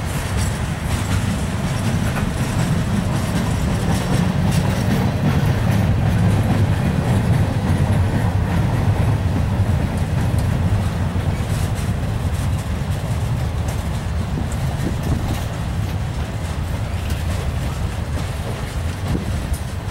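A freight train's cars rolling past close by: a steady low rumble of steel wheels on rail, with scattered faint clicks.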